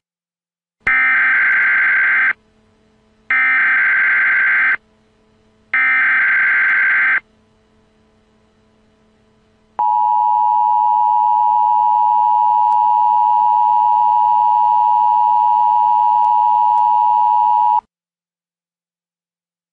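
Emergency Alert System header: three bursts of warbling digital data tones, each about a second and a half long with short gaps between them. They are followed by a long steady attention tone of about eight seconds that cuts off abruptly, signalling a tornado warning about to be read.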